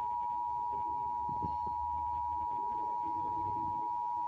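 Emergency Alert System two-tone attention signal: a steady, loud dual-pitched tone held without a break, the alert that precedes a Required Monthly Test message.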